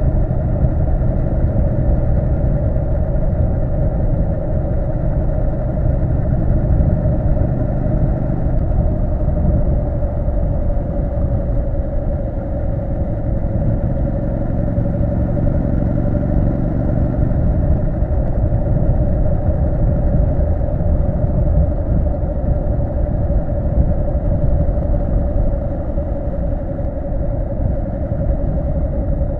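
Triumph Street Scrambler 900's parallel-twin engine running at steady revs under way, a continuous low rumble with an even drone that holds its pitch.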